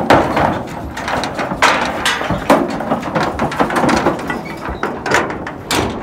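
Cattle hooves clattering and thudding on the floor of a metal livestock trailer, with the trailer panels and a steel pipe gate banging and rattling in a string of knocks, the loudest right at the start.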